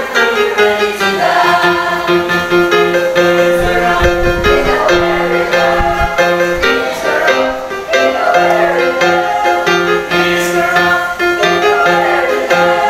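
Mixed youth choir singing a gospel song in sustained, held notes, with instrumental accompaniment underneath.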